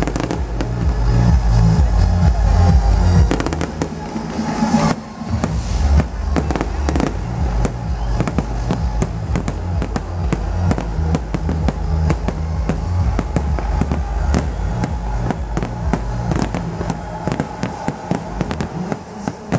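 Aerial fireworks bursting with many sharp bangs and crackles over loud electronic dance music with a heavy bass beat. The bass drops out briefly about four seconds in and again near the end.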